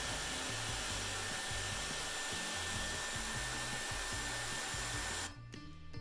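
Dyson Airwrap with its 1.6-inch curling barrel blowing air while a section of hair is wrapped around the barrel: a steady whoosh with a faint high whine, cutting off abruptly about five seconds in.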